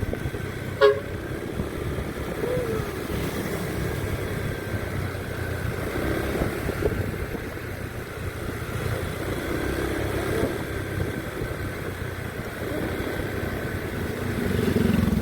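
Road vehicle engines running in traffic, a steady rumble, with one brief sharp blip about a second in.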